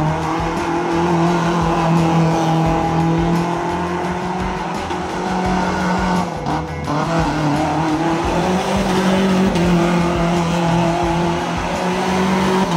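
Lifted Toyota pickup doing donuts: the engine held high in the revs while the tires spin and slide on the dusty pavement, with a brief drop about halfway through.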